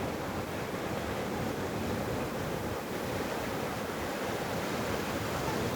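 Sea waves washing in, a steady rush of surf.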